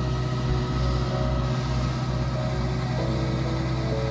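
Kubota combine harvester's diesel engine and threshing gear running steadily, a continuous hum with steady higher tones that shift about three seconds in, while the harvester unloads paddy through its auger into a tractor trailer.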